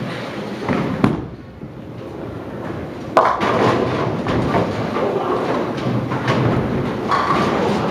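A bowling ball thumps onto the lane about a second in, rolls, and crashes into the pins about three seconds in, with a sharp hit followed by clattering pins and rumble, leaving one pin standing.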